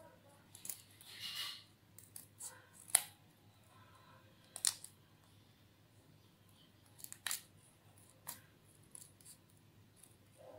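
Scissors trimming a stack of coloured and white paper: a series of sharp, irregular snips, the loudest about three seconds in.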